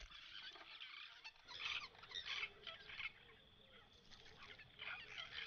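Faint chattering of a group of babblers: many short calls in quick succession.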